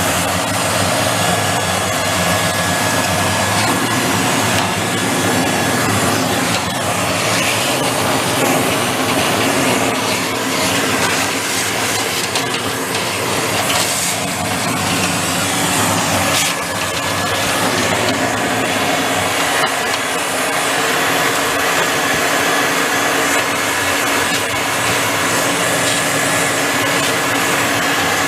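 Steady, loud machine noise: a motor running with a rush of air and a faint high whine, unbroken throughout.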